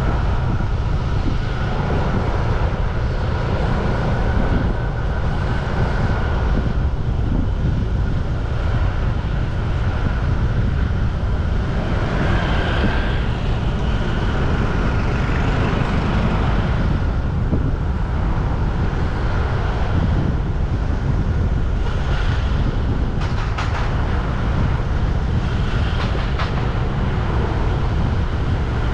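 Steady road traffic noise, with a heavy low rumble of wind on the microphone.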